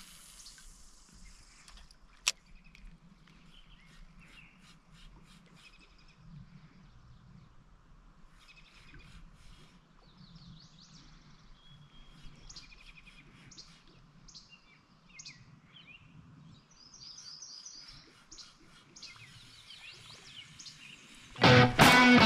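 Birds chirping and calling over a faint outdoor background, with one sharp click a couple of seconds in. Loud guitar music comes in near the end.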